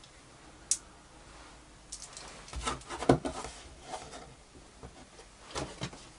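Small metal and plastic parts of a dismantled Bosch circular saw being handled: a sharp click about a second in, a cluster of clicks and light knocks around the middle, and a couple more clicks near the end.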